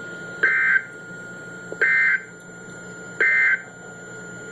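NOAA Weather Radio SAME digital data bursts: three short two-tone bursts, each about a third of a second long and roughly a second apart. This is the End of Message code that closes an EAS alert. A faint steady tone from the receiver runs beneath.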